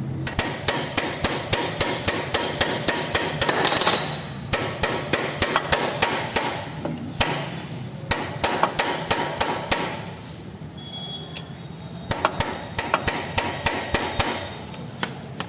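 Hammer tapping lightly and rapidly, several blows a second in runs with short pauses, driving a car AC compressor pulley fitted with a new bearing back onto the compressor and seating it fully.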